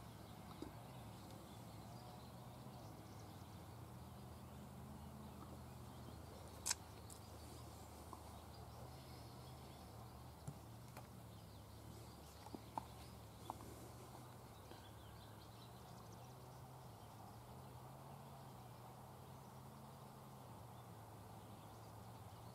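Near silence: a faint steady low hum with a few quiet isolated clicks, the sharpest about seven seconds in.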